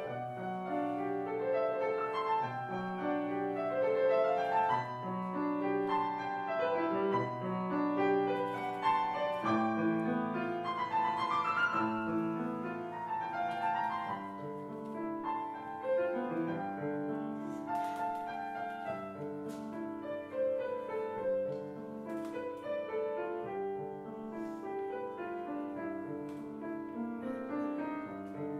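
Grand piano playing a passage of held notes and chords in an art song for soprano and piano.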